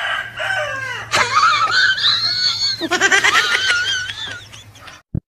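A chicken squawking in a run of loud, high, wavering calls, with a sharp knock about a second in.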